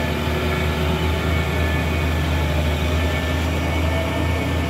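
Diesel engine of a heavily loaded cargo truck pulling hard up a steep hairpin climb, a deep steady drone that does not let up.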